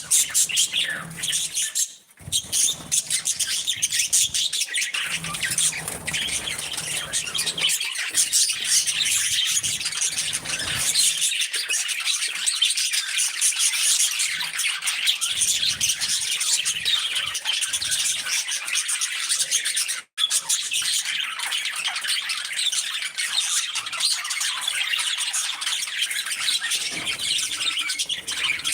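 A flock of budgerigars chattering continuously, a dense mix of chirps, warbles and squawks, cutting out for a moment twice.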